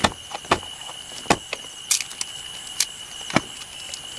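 Dry twigs and sticks snapping and cracking as they are broken and piled by hand for a campfire: about six sharp cracks at irregular intervals. A steady high-pitched insect trill runs underneath.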